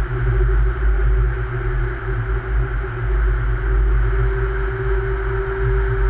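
Steady travel noise of fast movement through a rail tunnel: a deep rumble and hiss with one steady mid-pitched whine.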